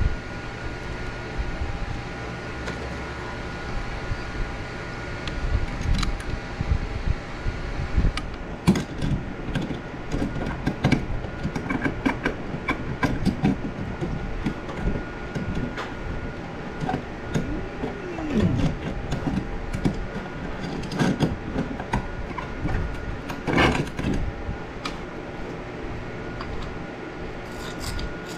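Scattered clicks and knocks over a steady hum, thickest in the second half.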